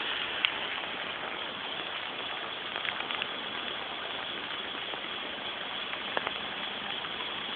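The Sarawak River in flood, running fast: a steady rush of water. A few short clicks come about half a second in, around three seconds in and around six seconds in.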